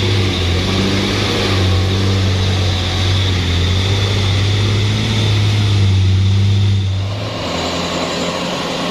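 Hino 500 FM 260 truck's six-cylinder diesel engine running with a steady deep drone, which drops off and gets quieter about seven seconds in.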